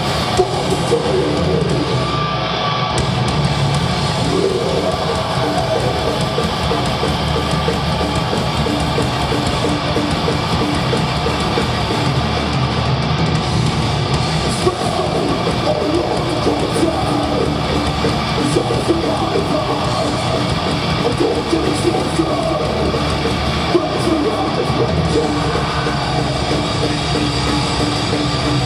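Death metal band playing live: electric guitars and drums, loud and dense without a break.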